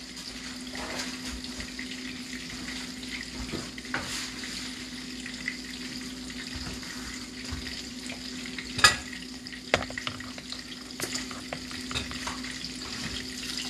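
Coconut-crusted fish fillets shallow-frying in oil in a pan: a steady sizzle, with a few light clicks and knocks, the sharpest about nine seconds in.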